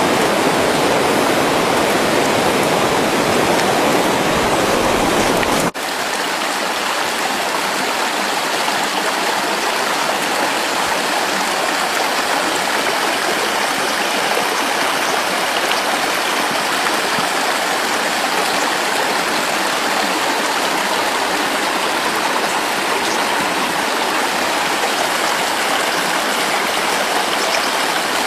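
Swollen, fast-flowing river water rushing steadily. A little under six seconds in, the sound breaks off abruptly and goes on as a thinner rush with much less low rumble.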